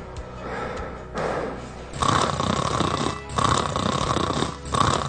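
A person snoring: softer snores at first, then louder ones from about two seconds in, each lasting a little over a second with short breaks between them.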